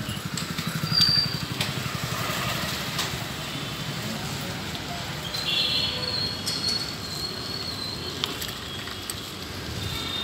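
Street traffic noise heard from a moving bicycle: a motorcycle engine runs close by over the first few seconds, and a few short high-pitched tones sound about a second in and again around the middle.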